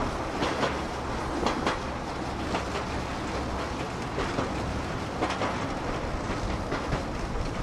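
Open-air rail cart running along old railway track: a steady rumble of steel wheels on the rails, with irregular clicks and clacks as the wheels pass over rail joints.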